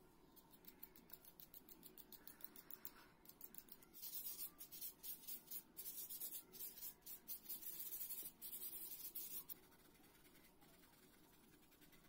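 A small blade scraping a blue soft pastel stick, faint and finely ticking, then from about four seconds in a sponge rubbed over paper in quick back-and-forth strokes that blend the pastel dust. The rubbing stops about two seconds before the end.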